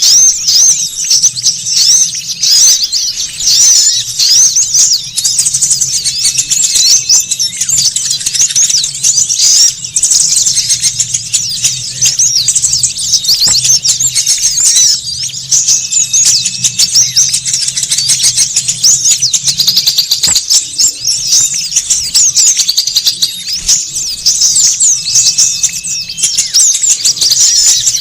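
Bird-lure recording of a noisy flock of small songbirds: dense, rapid, high-pitched chirping and twittering without a break, with a faint low hum beneath.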